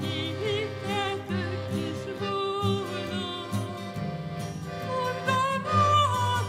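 A woman singing a worship song, accompanied by a piano accordion and an acoustic guitar. The accordion holds steady chords while its bass notes pulse in an even rhythm.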